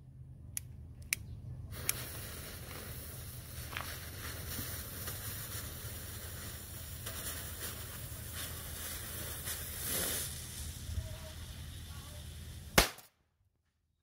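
A couple of sharp clicks, then a visco fuse burning with a steady sparking hiss and crackle for about eleven seconds, ending in one sharp loud bang as the match-head powder packed inside the brass padlock goes off and blows the lock open, throwing out its spring.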